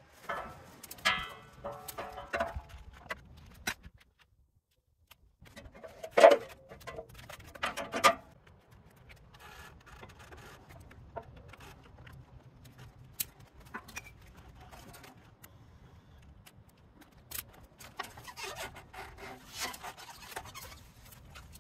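Ratchet tie-down straps being handled and tightened on a motorcycle carrier: webbing rubbing and rasping with sharp clicks from the buckles, and two louder clanks about six and eight seconds in, then scattered fainter clicks and rustling.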